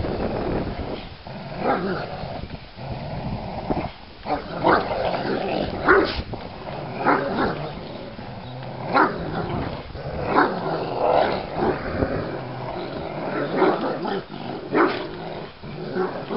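A Rottweiler and a Staffy cross playing tug of war: a continuous rough growling, broken every second or two by short, sharp barks. This is play growling over a tug toy.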